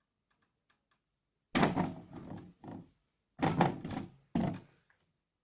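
Heat-press cap sealer's press being brought down by its lever onto a capped plastic bottle: a few sudden clunks and rattles, the first about a second and a half in, the last two close together near the end.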